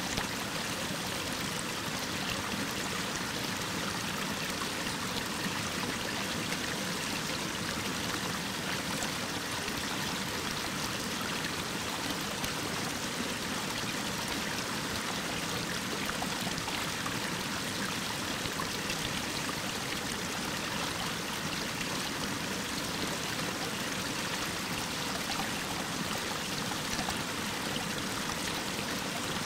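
Mountain stream waterfall splashing down a rock face: a steady, even hiss of falling water with no change in level.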